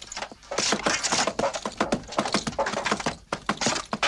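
Horse hoofbeats: a fast, dense clatter of hoof strikes, as of a horse galloping.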